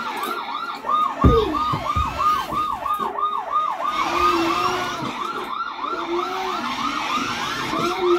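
The electronic police siren of a 12V kids' ride-on police car, played through the toy's small speaker: a quick rising-and-falling wail, about three cycles a second. A couple of thumps come about a second in.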